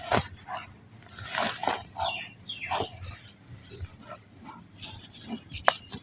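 Balls of very soft black sand crumbling: a run of irregular crunches and crackles, with one sharp crack near the end.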